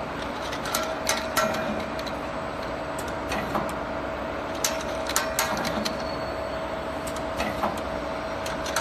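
Automatic inside-curling machine for small-diameter paper tubes running: a steady mechanical hum with a constant whine, broken by irregular sharp clacks from its mechanism.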